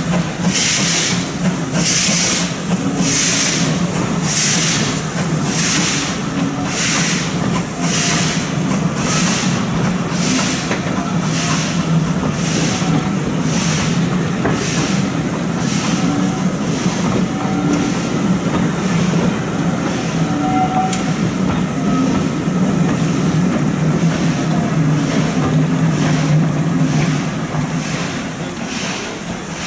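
GWR 2800 class 2-8-0 steam locomotive 2857 pulling away with its train: a regular exhaust beat of hissing chuffs that gradually quickens and fades as the engine draws away, over a steady low rumble.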